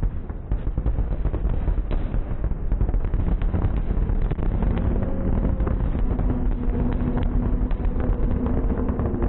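Fireworks display going off in rapid succession: a dense run of sharp cracks and pops over a continuous low rumble of booms.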